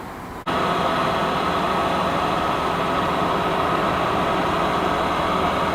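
A loud, steady rushing noise that starts abruptly about half a second in and holds without change.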